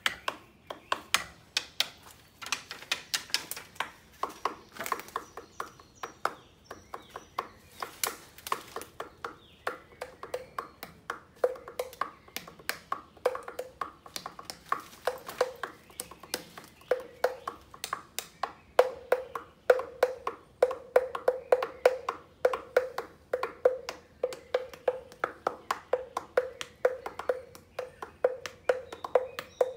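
Drumming with sticks on a hollow fallen tree trunk: a fast, steady rhythm of sharp wooden knocks. From about ten seconds in, most strokes ring with a hollow low note.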